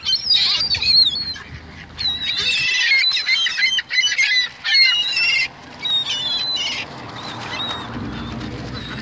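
A flock of gulls calling over one another as they compete for thrown food: many overlapping, high, bending squawks in dense bursts, easing off about seven seconds in.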